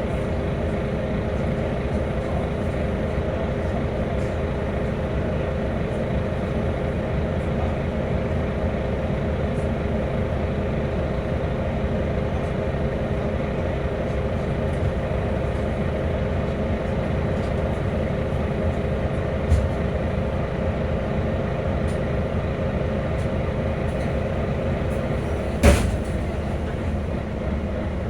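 Volvo B9TL bus running with a steady drone and a held mid-pitched hum. A knock comes about two-thirds of the way through, and a louder bang near the end.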